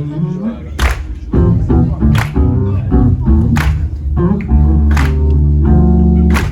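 Live jazz-funk band playing: drum kit, electric bass and keyboards. A sharp drum hit lands about every second and a half over a heavy, sustained bass line and chords.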